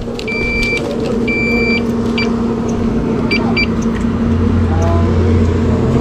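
Motorcycle engines idling with a steady hum, with a string of short electronic beeps over the first few seconds. A deeper engine rumble joins about four seconds in.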